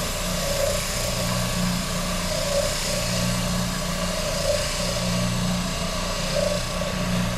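Electric woodworking machine running steadily, a motor hum under a hiss, with a tone that swells and fades about once a second, while a guitar body is cut and sanded.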